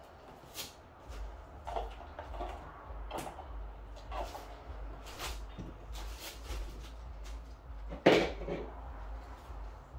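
A series of light knocks and clunks of objects being handled and set down, with one louder knock about eight seconds in.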